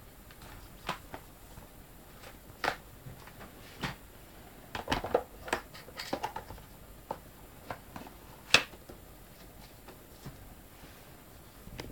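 Plastic DVD cases and a cardboard box set being handled: scattered clicks, taps and light knocks, busiest around the middle, with one sharp click about two-thirds of the way in.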